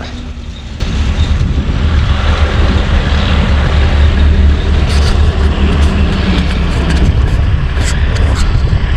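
Heavy farm machinery running steadily, a deep engine rumble that comes in abruptly about a second in.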